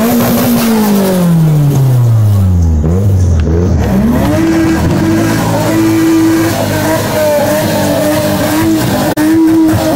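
A loud car engine. Its pitch falls steadily for about three seconds, then it is revved up hard and held at high revs, with a few short dips.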